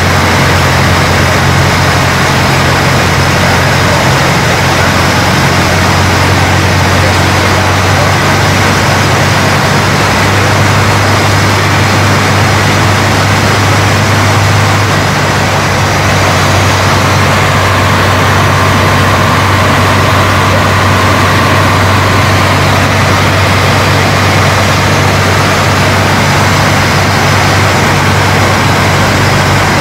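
Light seaplane's piston engine and propeller running steadily with a deep hum, heard from the cockpit over a continuous rush of wind.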